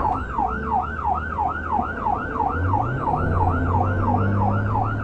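Police cruiser siren in fast yelp mode, its pitch sweeping up and down about four to five times a second, over the cruiser's engine. The engine's low hum rises in pitch about halfway through as the car accelerates in pursuit.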